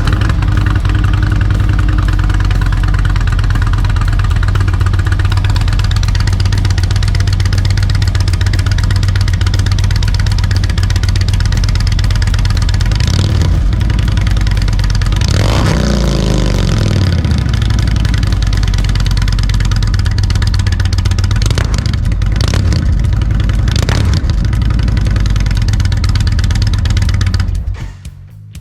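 2020 Indian Springfield Dark Horse V-twin idling through Sharkroad 4-inch slip-on mufflers, with one short rev about halfway through whose pitch falls back to idle. The engine is shut off near the end.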